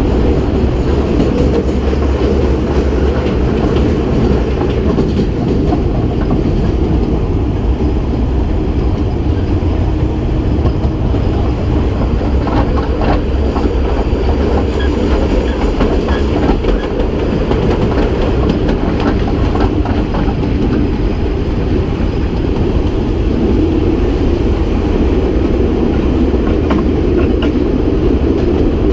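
Kurobe Gorge Railway narrow-gauge trolley train running, heard from an open-sided car: a steady loud rumble of steel wheels on the rails, with scattered clicks over the rail joints.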